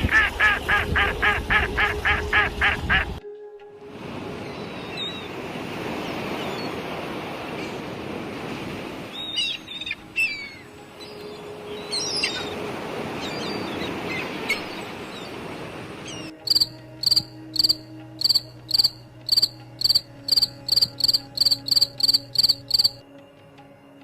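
A succession of bird calls: a fast run of repeated calls for the first three seconds, then a hiss of outdoor ambience with scattered chirps, then from about sixteen seconds a regular series of high, short chirps about two a second that stops near the end.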